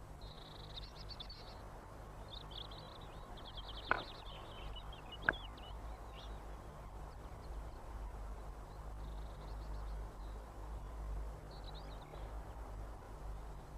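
Tits calling in high chirps and quick chattering trills, with two sharp taps about four and five seconds in, over a low steady hum.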